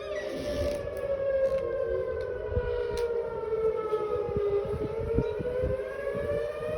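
Outdoor civil-defense warning sirens wailing steadily, their pitch sagging slowly and rising again near the end, sounded as a severe-storm warning.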